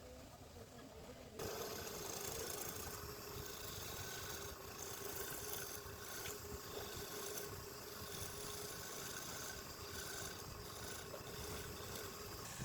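Woodturning lathe running steadily, with a steady hum over a broad hiss, starting abruptly about a second and a half in.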